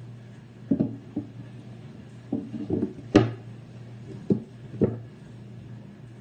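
Wooden lid being fitted onto a pine crate: a series of about seven wood-on-wood knocks and bumps, the loudest a little past halfway.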